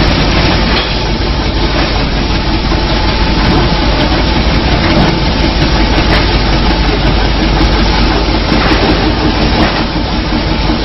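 Sawdust pallet making machinery running: a loud, steady mechanical noise with a low hum underneath, dipping briefly near the end.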